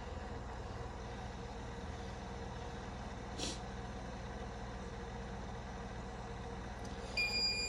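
Slinger Bag ball launcher humming steadily while its ball container fails to turn, the fault it has been showing with a grinding sound. A brief hiss comes a little after three seconds in, and a loud electronic beeping starts near the end.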